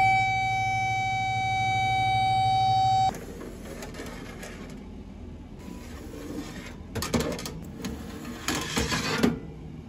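A loud, steady electronic alarm tone that holds for about three seconds and then cuts off abruptly. After it come clinks and scrapes of metal baking sheets being slid out along convection-oven racks, busiest in the last few seconds.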